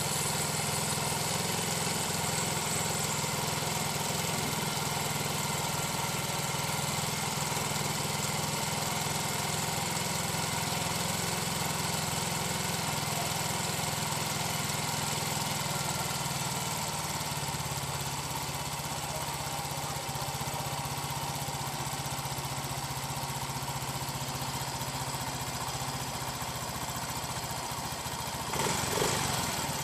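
Yamaha Mio 125 scooter's single-cylinder fuel-injected engine idling steadily just after a combustion-chamber cleaning, its idle speed dropping slightly about halfway through as the ECU settles it. A brief louder burst comes near the end.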